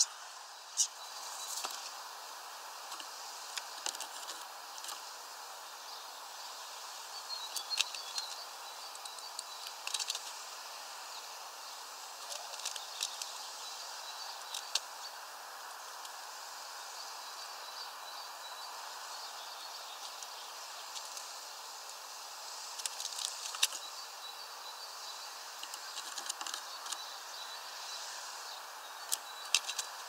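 Steady outdoor background hiss with scattered short, high chirps and sharp ticks from small birds, coming in clusters a few seconds apart.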